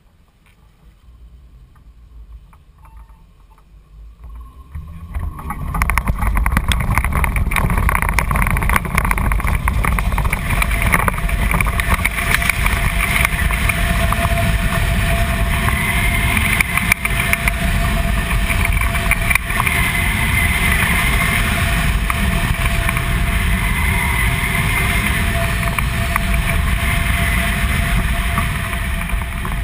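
Heavy wind noise on a glider-mounted camera's microphone as a hang glider takes off and climbs, with a steady droning tone running through it. The noise comes up about five seconds in, after a near-quiet start.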